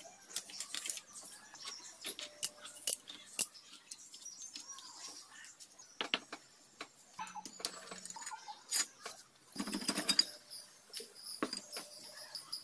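Metal engine parts on a motorcycle's cylinder head clinking and tapping as they are handled, with scattered light metallic clicks. A louder scraping rasp about ten seconds in, as the cylinder head is worked loose and lifted off its studs.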